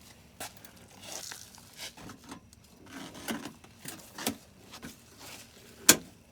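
Scattered handling noises: short scrapes, rustles and small knocks, with one sharp, louder click near the end.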